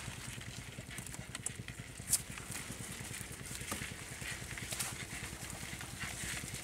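Rustling and scattered sharp clicks of a green mesh fish trap and its net being handled in a wooden boat, with one sharper click about two seconds in, over a low, steady throbbing drone.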